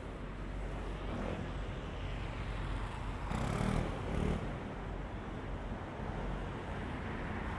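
City street traffic noise, a steady low rumble heard from a moving bicycle. About three and a half seconds in it swells louder for about a second.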